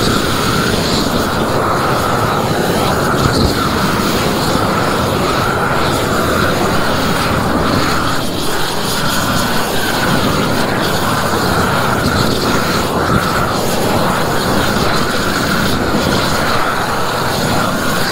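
Propane roofing torch burning at full flame, a loud, steady rush, as it heats a torch-down modified bitumen roll and the old roof surface to fuse them. The old surface is hard and dry, so it is being overheated until it melts to the new layer.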